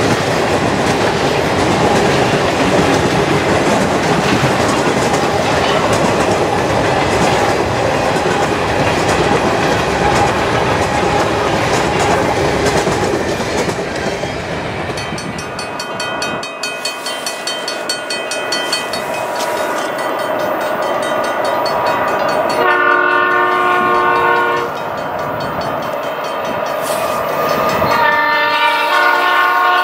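Freight cars rolling past close by, their wheels clattering over the rail joints. About halfway through this gives way to an approaching CN freight whose locomotive horn sounds a few blasts, a strong one about two-thirds of the way in and another near the end.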